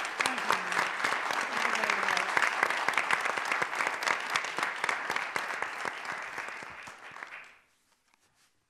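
An audience applauding, a dense clapping that tapers away and stops about a second before the end.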